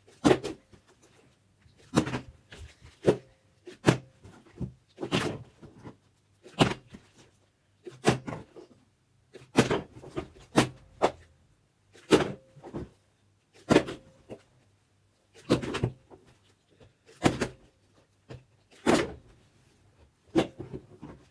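Plastic water bottles being flipped and thumping down onto a wooden tabletop again and again, about once a second or so, each landing or topple a sharp knock with a short rattle after it.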